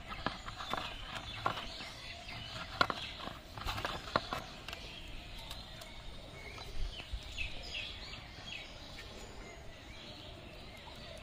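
Birds chirping over steady background noise, with scattered sharp clicks and taps in the first few seconds.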